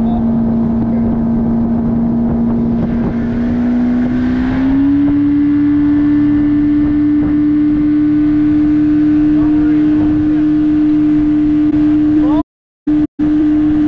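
Boat's outboard motor running at speed with a steady droning whine and rushing wind and water; about a third of the way in the pitch steps up and then holds as the throttle opens further. Near the end the sound drops out twice, briefly.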